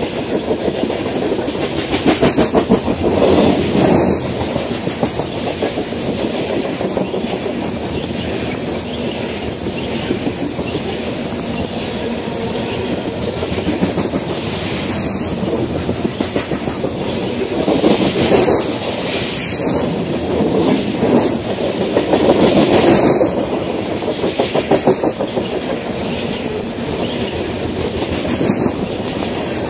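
Coal train's freight cars rolling past close by: a steady rumble of steel wheels on rail with a rhythmic clickety-clack as the wheel sets cross rail joints, swelling louder a few times as trucks pass.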